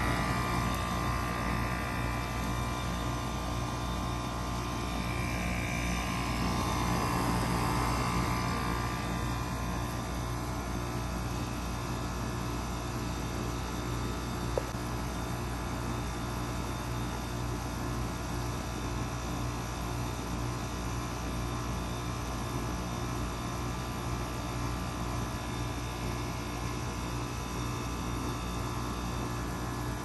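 Goodman 3.5-ton packaged heat pump running in cooling mode: a steady hum from the compressor and condenser fan. A faint swell of noise rises and fades in the first few seconds, and there is one short tick about halfway through.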